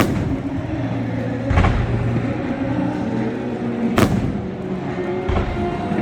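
Fireworks bursting: four booms a second or two apart, the sharpest about four seconds in, with music playing underneath.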